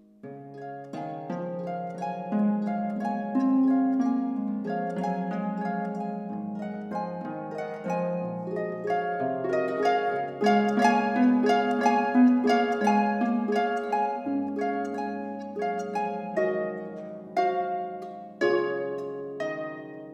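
Solo harp playing a slow melody over ringing low notes and chords, plucked notes sustaining into one another. Playing resumes just at the start after a brief pause, and a few stronger plucked chords come near the end.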